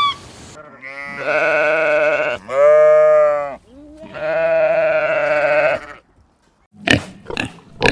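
A sheep bleating three times, each a long, drawn-out call of one to two seconds. Near the end, a quick run of short grunts begins.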